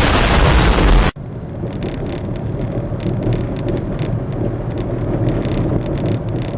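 A second of loud, wind-like noise that cuts off abruptly, then a Daihatsu Move Custom RS driving: steady road and tyre rumble from inside the cabin with faint, irregular knocks.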